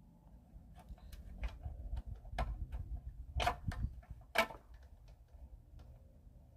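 Irregular metallic clicks and light knocks as a long screw is fitted into place on an old lawnmower engine, the sharpest clicks about two and a half, three and a half and four and a half seconds in.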